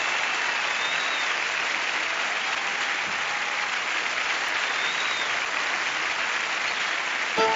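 Concert audience applauding steadily at the end of a song. The band starts playing again right at the end.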